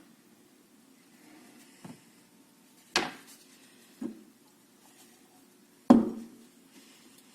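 Four sharp knocks and clicks of small hard parts or tools being handled and set down on a work surface, the loudest near the end with a short ring after it.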